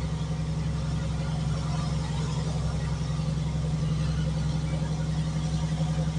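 A heavy truck's engine running steadily at a constant pace with an even low drone, heard from the cab with road and wind noise over it.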